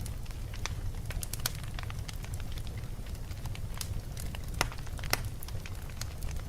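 Wood fire burning in a fireplace: irregular crackles and sharp pops over a steady low rumble of flame, with the loudest pops about four and a half and five seconds in.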